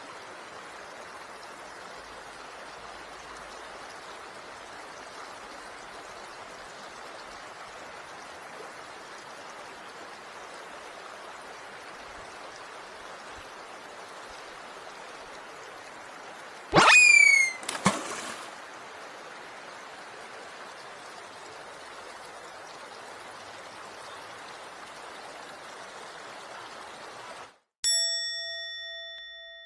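Mountain stream water rushing steadily. About two-thirds of the way through comes a loud, sudden double sound with a quick upward glide. Near the end the stream cuts out and an edited-in chime rings once and fades.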